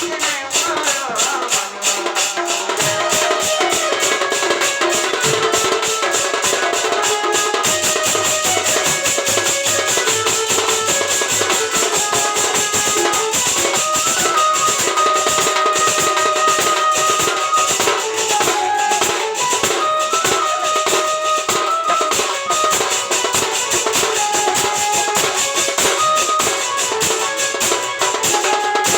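Instrumental folk music: a melody of held notes over fast, steady drumming with a shaker-like rattle.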